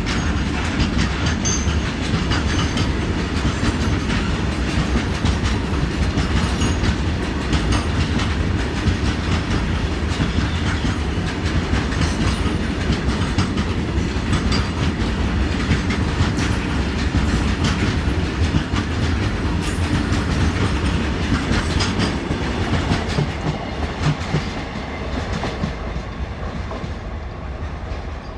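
Wheels of a fully loaded freight train of BCNA covered wagons rolling past close by, with a steady rapid clickety-clack over the rail joints. The sound dies away near the end as the tail of the train passes.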